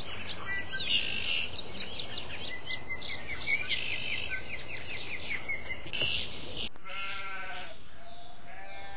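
Outdoor ambience of small birds chirping rapidly over a steady background hiss. After a brief break near the end comes a single wavering bleat.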